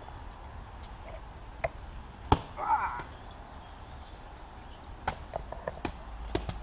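Foam-padded weapons smacking against shields and bodies in a foam-fighting melee: scattered sharp hits, the loudest a little past two seconds in, followed by a brief shout. A quick run of hits comes in the last second and a half.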